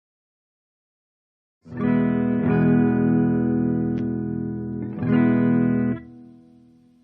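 Electric guitar played through an amplifier via a single-transistor boost circuit: a chord is struck about two seconds in, struck again shortly after and once more near the end, then muted with a faint ringing tail.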